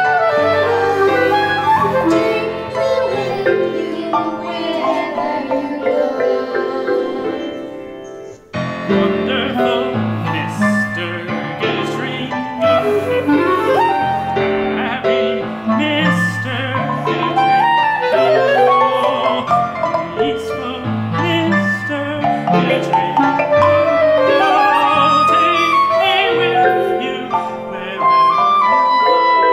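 Instrumental chamber-ensemble music, a woodwind melody over piano. It breaks off briefly about eight seconds in, then goes on.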